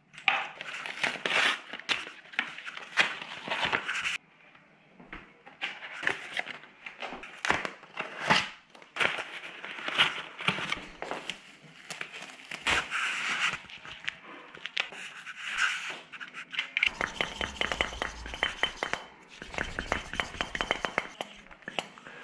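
Plastic packaging and bubble wrap being torn open and crinkled by hand, among irregular clicks and scrapes of parts being handled. Near the end come two stretches of a low rumble with rapid ticking.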